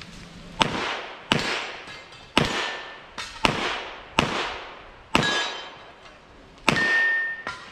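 Pistol shots fired at a steady pace during a USPSA Carry Optics stage: seven loud shots, about one a second, with two fainter pops between them. A ringing note lingers after a few of the shots.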